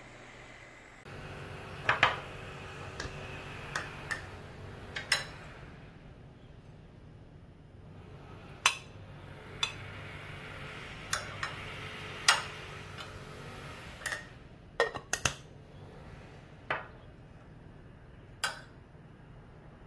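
A metal spoon clinking against a glass jar and a ceramic plate as pickled chillies are spooned out, about a dozen irregular sharp clinks with a brief ring. A steady low background hum runs underneath.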